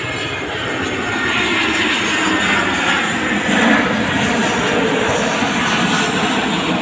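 Citilink Airbus A320 airliner passing low overhead on landing approach: the steady rush of its twin turbofan engines swells to a peak a little past halfway, then eases slightly.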